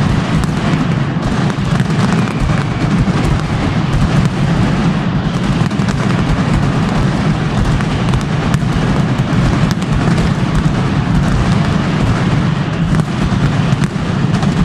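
Mascletà firecrackers going off in a dense, unbroken barrage of bangs, with no pause between detonations, loud and steady throughout.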